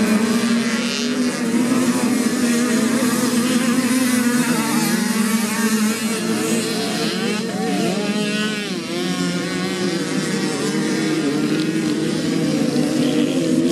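Moped-class motocross bikes racing, their engines revving up and down in pitch as the riders accelerate and ease off, with several engines overlapping.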